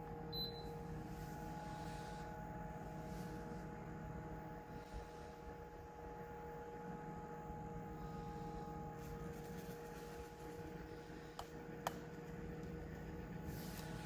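Small portable evaporative air cooler fan running with a faint steady hum, and a couple of light clicks near the end.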